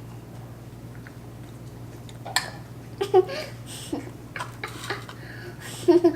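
Eating noises: after a quiet stretch, scattered small clicks and rustles of food and packaging, with a couple of brief mouth or voice sounds, over a steady low hum.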